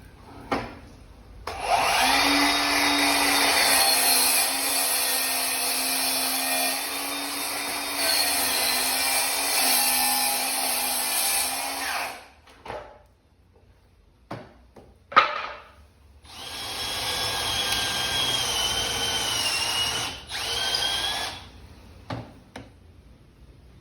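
A handheld power tool motor running with a steady whine in two long runs, the first about ten seconds and the second about five, with a few short knocks in between.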